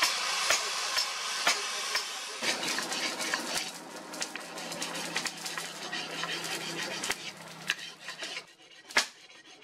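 An angle grinder's flap disc sanding the steel blade with a steady hiss, then, about two and a half seconds in, the leaf-spring steel blade scraped back and forth on a flat sharpening stone in quick strokes, the strokes thinning out near the end.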